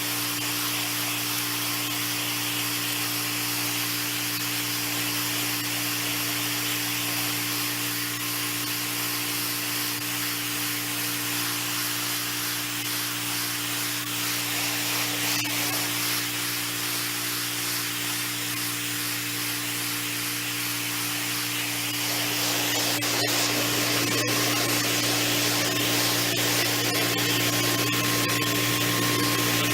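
Stanley FatMax gas pressure washer running: a steady engine hum under the hiss of the high-pressure water spray on concrete. The spray grows louder about two-thirds of the way through.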